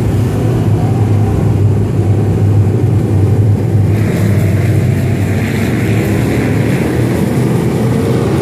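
Dirt-track Crate Sportsman race cars' crate V8 engines running together as the pack circles the track, a loud steady drone, with a brighter hiss joining in about halfway through.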